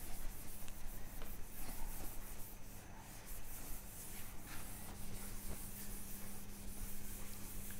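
A cloth wiping a whiteboard clean, in repeated rubbing strokes, over a steady low hum.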